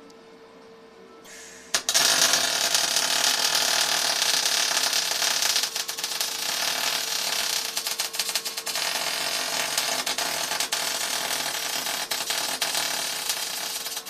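MIG welding arc struck about two seconds in with a click, then crackling continuously as the bead is laid, over a steady hum from the welder.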